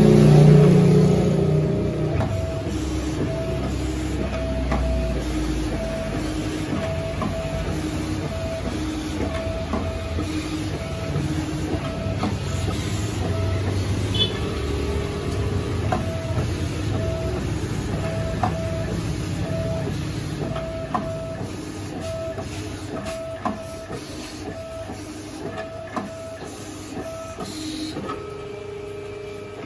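Rhinotec vinyl cutting plotter contour-cutting sticker sheets: the motors driving the cutting head and rollers whine in short, even pulses, about three every two seconds, with scattered sharp clicks.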